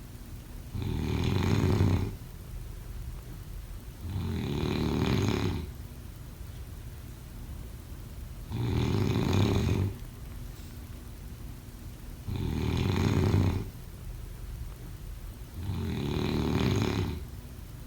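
Snoring from a sleeper in a slow, even rhythm: five snores, each about a second long, roughly every three and a half to four seconds.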